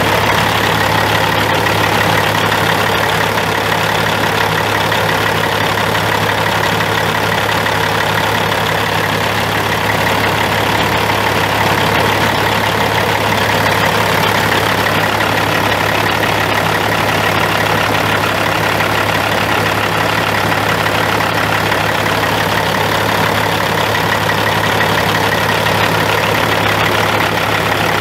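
Caterpillar C15 inline-six turbo diesel of a 2005 Kenworth W900 semi truck idling steadily, with no change in engine speed.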